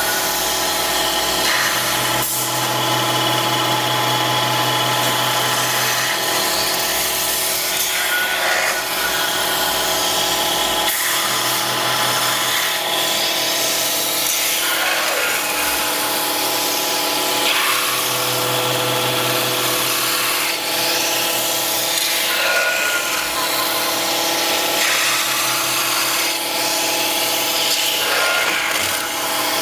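Metal spinning lathe running steadily while its forming roller rubs along a spinning sheet-metal bell as it shapes the flare, a continuous machine hum with several steady tones under a scraping rub. A deeper hum swells and fades a few times, and a brief sharper scrape comes every several seconds.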